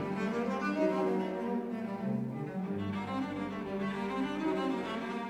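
Background music of bowed strings, a low cello line holding long notes that change about once a second.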